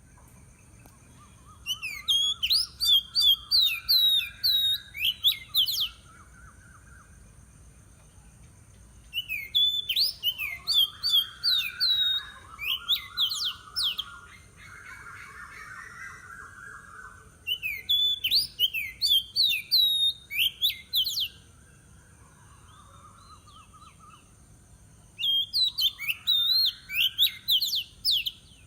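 Wild birds singing: four loud bouts of rapid, sharp whistled notes, each about four seconds long and roughly eight seconds apart, over softer warbling from other birds.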